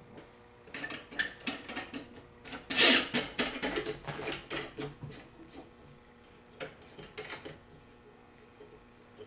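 Metal clicks, knocks and rattles of a Hopkins manual screen-printing press as a metal screen frame is set into the clamp and the clamp knobs are turned, in a cluster with the loudest knock about three seconds in. A few more clicks follow a few seconds later.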